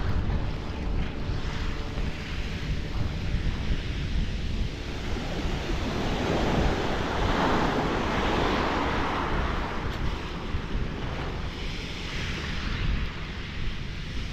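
Small waves breaking and washing up a shingle beach, with wind buffeting the microphone. The wash swells about halfway through and again near the end.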